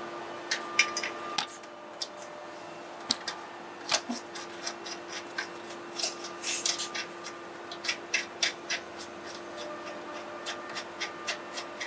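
Irregular small clicks, taps and rubbing from hands working the plastic trim and fittings at the front of a car's engine bay, over a steady low hum.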